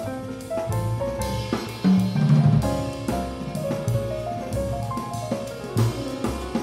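Jazz piano trio playing: grand piano chords and runs over upright double bass, with the drum kit keeping time on snare, bass drum and cymbals. Low notes swell loudly about two seconds in.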